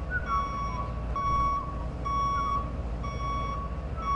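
Forklift's warning beeper sounding a steady single-pitch beep about once a second as the truck drives past, with a low rumble underneath.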